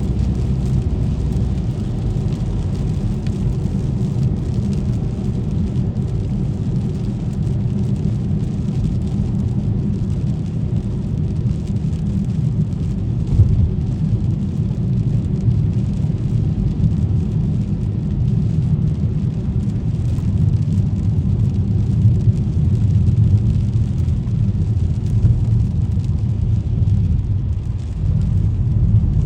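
Steady low rumble of a car driving on a wet street: engine and tyre noise with no sharp events.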